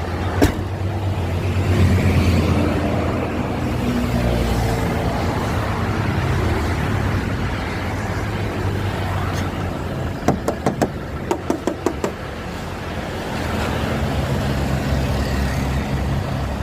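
Isuzu Panther LS Turbo's four-cylinder turbo diesel engine idling steadily. A quick run of about eight sharp knocks comes about ten seconds in.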